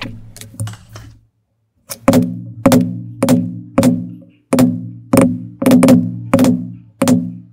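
Leather basket weave stamp struck with a mallet on leather over a granite slab, tooling a basket weave background. About nine evenly spaced strikes, roughly one every 0.6 s, begin about two seconds in, each a sharp knock followed by a short low ringing hum.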